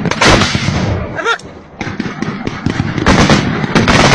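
Gunfire in a firefight: many loud shots in quick, uneven succession, some bunched into bursts, with a short lull about a second and a half in.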